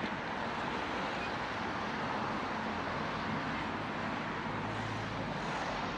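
Steady city traffic and road noise heard from a bicycle rolling along a street, with cars running alongside. A low hum comes in for about a second near the end.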